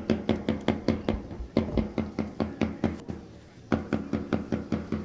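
Drums beaten in a quick, even rhythm of about five or six strokes a second, each stroke with a short pitched ring; the beating breaks off briefly about three seconds in and then starts again.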